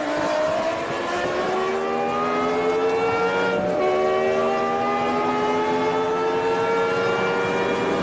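BMW E60 M5's 5.0-litre V10 engine pulling hard under full throttle, heard from inside the cabin: the pitch climbs steadily, drops sharply at an upshift about halfway through, then climbs again.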